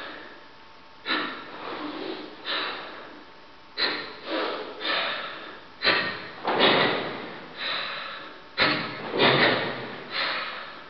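Forceful ibuki breathing of a karateka performing Kyokushin Sanchin kata: loud, hissing breaths, about a dozen, each starting abruptly and fading over roughly half a second, in short groups.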